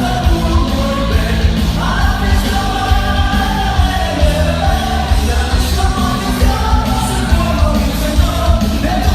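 Loud rock music from a party sound system: a lead singer's melody over a steady, heavy bass.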